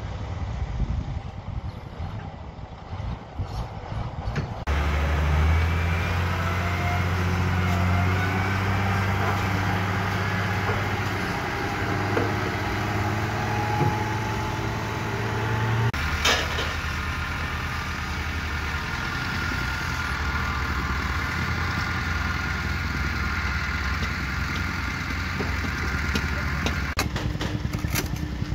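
Heavy diesel engine of a wheel loader running steadily at idle, becoming louder about five seconds in. A few sharp clanks occur around the middle.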